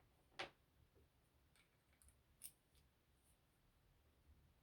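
Near silence with a few faint short clicks as a key is worked in a brass padlock, then one sharp, louder click of the lock mechanism right at the end.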